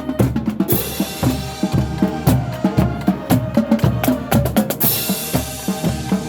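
Marching band playing, with held wind and brass notes over a drumline of bass drums and snares beating a steady, busy rhythm. Two loud crashes come in, about a second in and again near the end.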